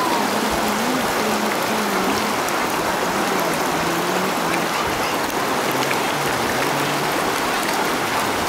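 River water rushing over rocks in shallow rapids: a steady, loud rush of flowing water.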